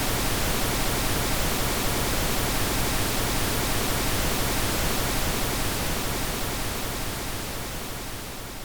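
Pink noise: a steady, even hiss across the whole range, fading out over the last couple of seconds.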